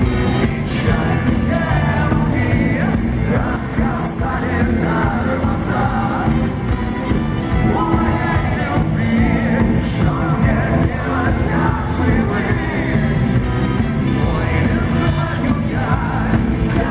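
Rock band playing live with singing, heavy bass and drums throughout.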